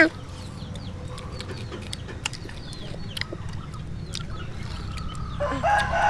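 Chickens clucking, with a rooster crowing for over a second near the end.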